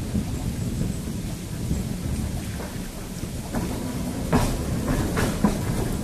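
Heritage electric tram running along its track, heard on board: a steady low rumble from the wheels and motors, with a run of sharp clicks and knocks from the wheels on the rails in the second half.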